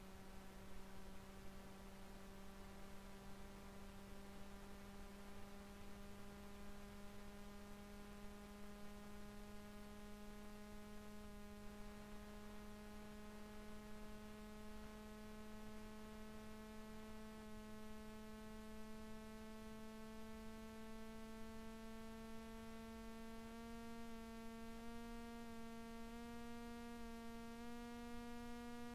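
A faint steady hum with a row of overtones, its pitch creeping slowly upward throughout and stepping up slightly a few times near the end.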